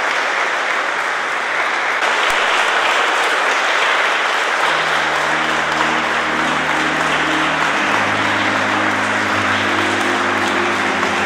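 Audience applauding steadily. From about halfway, sustained low held chords of music come in beneath the clapping and shift to a new chord a few seconds later.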